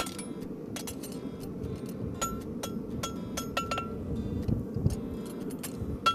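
Hand hammer striking steel bar stock on an anvil, bending the end of the bar at right angles for a heart bar shoe. The irregular blows each ring with a clear metallic tone, over a steady low rush.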